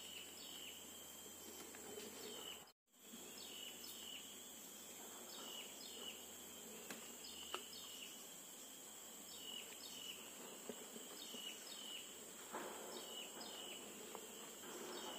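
Tropical forest insects droning steadily at a high pitch, with short chirping calls repeating about once a second. The sound cuts out completely for a moment about three seconds in, and a few faint clicks come later.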